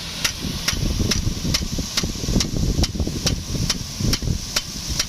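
DN50 big gun impact sprinkler clacking about three times a second as its swing arm strikes the jet, over the steady hiss of the water jet and a low rumble.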